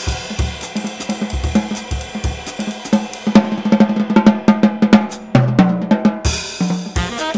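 Live jazz organ combo: a drum kit played busily on snare, hi-hat and cymbals over sustained organ notes in the low register, with a cymbal crash about six seconds in.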